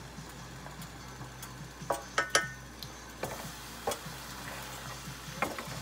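Asparagus frying in avocado oil in a skillet, a steady sizzle, with a wooden spatula knocking against the pan as the spears are stirred: a quick cluster of knocks about two seconds in and a few single ones after.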